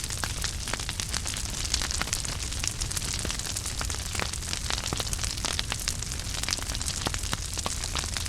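Wood fire crackling in a fireplace: a steady hiss of burning with many small, irregular pops and snaps, over a low rumble.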